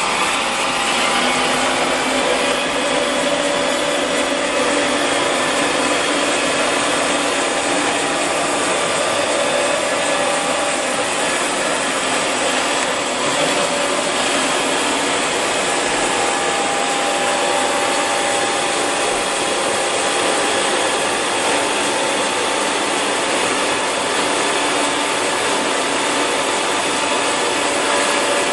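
Bokö milling machine running under power: a steady motor and gearbox whir with several humming tones in it, their pitch shifting a couple of times.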